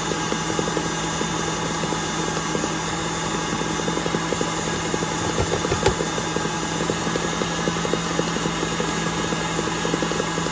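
KitchenAid stand mixer running steadily, beating cream-cheese cheesecake filling in its bowl: an even motor hum with a fast rattle from the beater, and a single knock a little past halfway.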